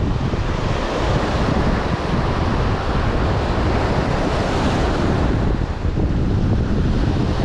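Wind buffeting the microphone over steady sea surf, a loud, even rush of noise.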